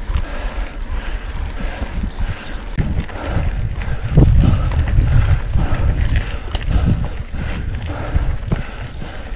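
A mountain bike rolling over a loose gravel track, its tyres rumbling and the frame jolting over stones, with wind buffeting the microphone. The rumble grows rougher and louder for a few seconds in the middle.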